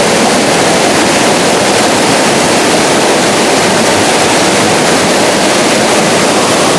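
Mountain creek water rushing, a loud steady noise.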